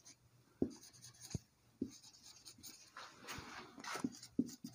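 Faint marker pen writing on a whiteboard: a run of short strokes and taps as letters are written, with longer scratchy strokes about three seconds in.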